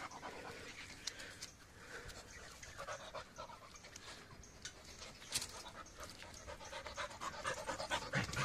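Labrador puppy panting softly, with a few faint clicks and one sharper tick about five seconds in.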